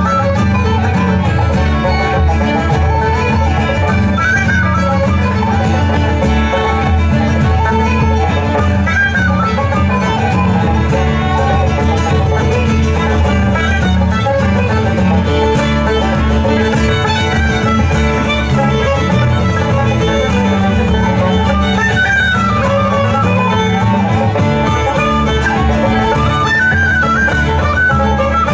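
Live bluegrass music played without singing: a fiddle carrying the melody over strummed guitar and banjo.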